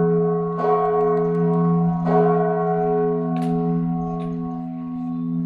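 Church bell tolling: struck twice, about a second and a half apart, with its deep hum and overtones ringing on between strokes and slowly fading.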